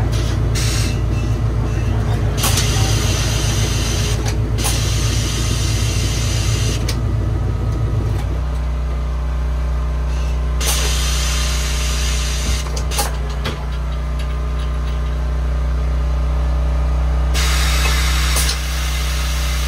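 Pneumatic tire changer at work while mounting a tire on an alloy rim: several hisses of air, each a second or two long, and a few sharp metal clicks, over a steady low motor drone that drops in pitch about eight seconds in.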